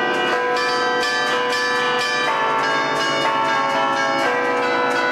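A ring of twelve church tower bells played from a wooden hand-struck keyboard in the Bergamasque 'allegrezza' style. Strokes come in quick succession, forming a tune modelled on brass-band music, and many notes ring on over one another.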